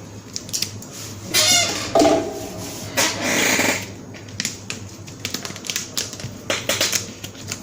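Hands working inside an open server case: scattered clicks and taps of plastic and metal parts, with louder rustling scrapes about a second and a half, two and three seconds in.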